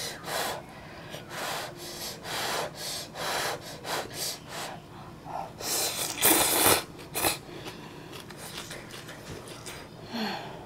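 Close-miked eating of spicy ramen noodles: a run of short chewing and slurping noises, then one loud, long slurp of noodles about six seconds in.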